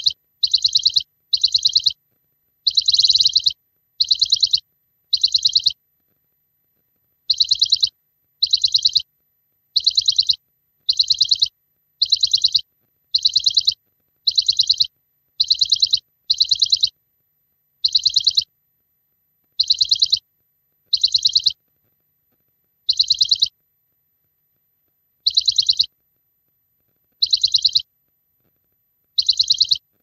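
High trilled bird chirps in identical short bursts, each under a second, repeated every one to two seconds and spacing out further in the second half, with dead silence between them: a dubbed-in, looped bird-chirp sound effect rather than live birdsong.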